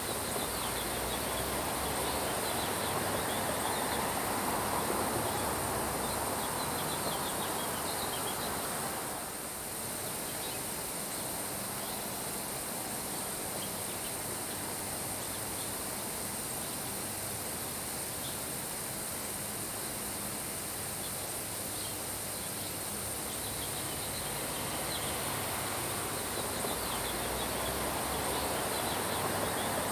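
Steady summer rain falling on grass, with wind swelling in gusts and faint high chirps throughout. The rain noise briefly softens about nine seconds in.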